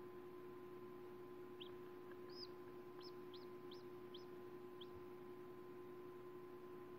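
A chicken chick peeping as it hatches from its pipped egg: about seven short, high peeps between roughly one and a half and five seconds in, over a steady faint hum.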